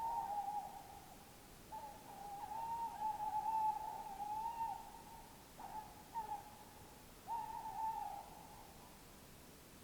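An owl hooting: a run of wavering hoots, one drawn out for about three seconds, that stops shortly before the end, over a faint steady hiss.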